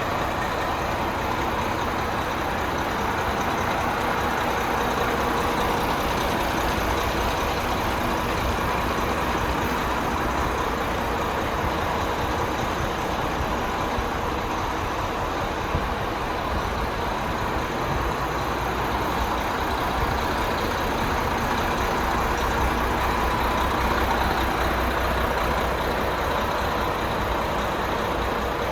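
Renault T460's 11-litre turbo diesel engine idling steadily, an even low rumble that stays the same throughout.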